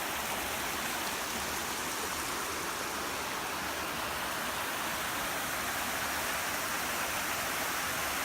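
River water rushing steadily over rocks, an even unbroken wash of sound.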